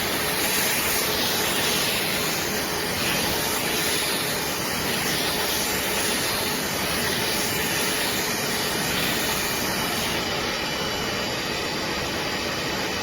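BISSELL Little Green portable carpet and upholstery cleaner running, a steady loud suction motor whoosh with a faint hum, shutting off abruptly at the very end.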